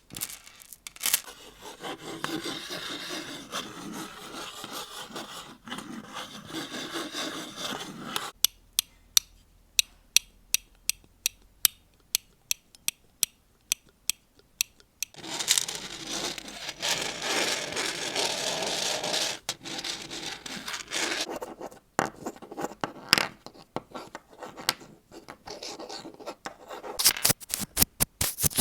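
Close-miked ASMR trigger sounds: two stretches of dry rubbing and scraping, each broken by a run of sharp, separate clicks or taps, about two a second.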